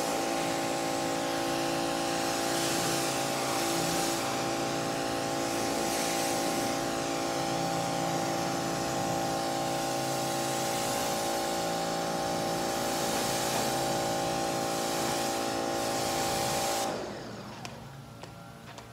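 Pressure washer running: a steady motor-and-pump hum under the hiss of the water jet spraying the car. It cuts off suddenly near the end.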